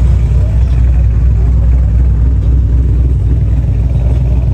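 Chevrolet TrailBlazer SS's 6.0-litre LS2 V8 running at low revs with a loud, low, steady exhaust note as the SUV rolls slowly past.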